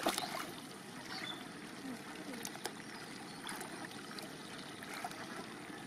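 Hands splashing and sloshing in shallow, muddy field water. There is a sharp splash right at the start, then scattered small splashes and trickles, with faint voices in the background.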